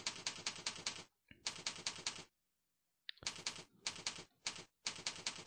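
Computer keyboard typing in quick runs of keystrokes with short pauses, the longest about a second near the middle.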